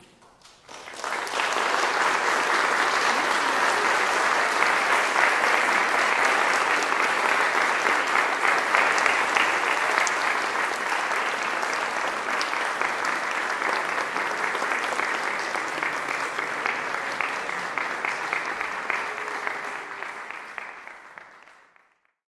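Audience applauding, swelling quickly about a second in, holding steady for most of the time and then dying away near the end.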